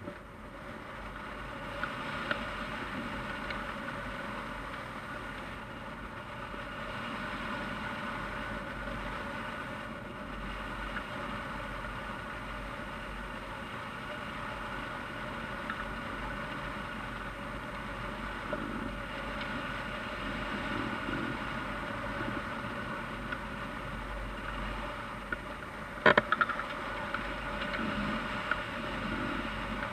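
Airflow rushing steadily past a hang glider in flight and over the wing-mounted camera's microphone, with a cluster of sharp clicks about 26 seconds in.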